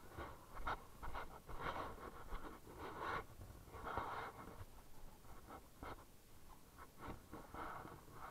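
A canvas shoe being scrubbed with a wet scrub sponge: irregular short rubbing strokes mixed with light clicks and knocks of handling.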